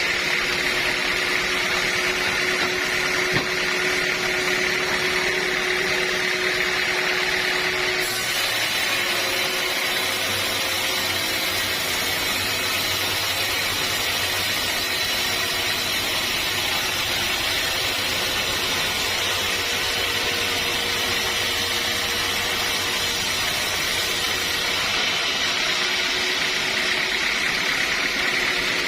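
Sawmill saw and machinery running steadily, the sound changing in character about 8 seconds in and changing back near the end, as when the blade goes from running free to cutting teak and back.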